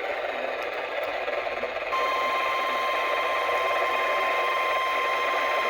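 NOAA Weather Radio receiver hissing with static, then about two seconds in a single steady warning alarm tone of about 1050 Hz comes on abruptly and holds. The tone marks a weather radio alert, here a weekly test.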